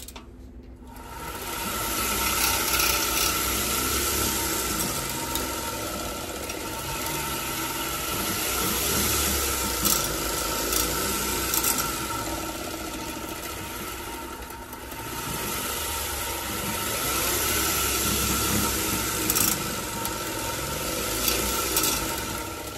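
Homemade automatic bicycle gear shifter spinning fast: its shaft, roller bearings and spring assembly whirring and rattling with a steady whine and a few sharp clicks. It speeds up about a second in, eases off around the middle, picks up again and winds down near the end.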